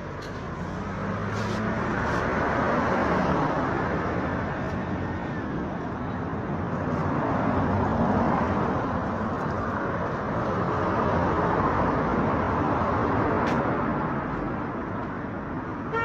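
Road traffic going by close at hand: engine hum and tyre rush that swell and fade as vehicles pass, about three times.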